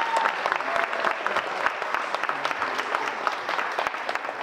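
Audience applauding: dense, steady clapping, with a few faint voices in the crowd.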